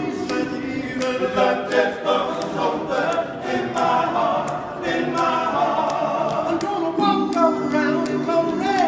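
Men's a cappella gospel group singing together in harmony, several male voices at once, with sharp clicks about twice a second keeping a steady beat.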